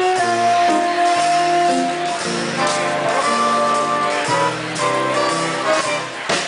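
Live dance band playing a swing-style jazz number, with horns holding sustained chords that change every second or so.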